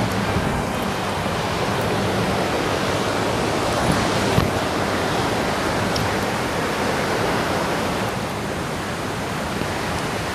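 A mountain stream rushing steadily, with one brief knock about four seconds in.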